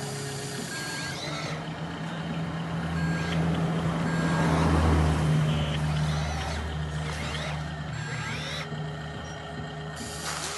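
Radio-controlled dump truck and excavator at work: a steady low truck-engine drone that swells about halfway through, with a hiss that starts and stops and a few short rising motor whines.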